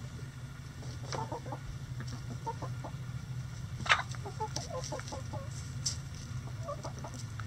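A flock of hens clucking while they forage, in short calls scattered throughout. A sharp click about four seconds in, over a steady low hum.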